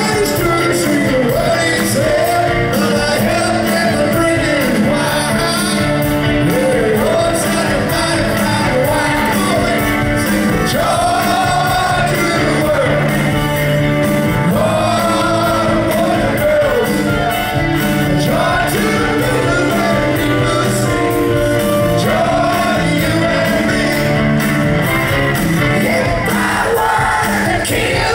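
A live rock band playing with a lead singer's vocals over drums, electric bass and keyboards, heard from the audience in a large hall.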